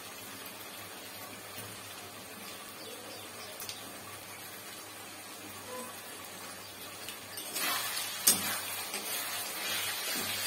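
Vegetables and sauce frying in an aluminium kadai, with a faint sizzle at first. About seven and a half seconds in, a metal spatula starts stirring and scraping through the pan, the sizzling gets louder, and there is one sharp clank of spatula on pan.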